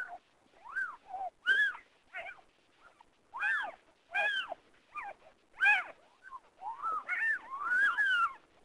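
Newborn kittens mewing: a rapid string of short, high-pitched mews, about two a second, each rising then falling in pitch, with some overlapping near the end.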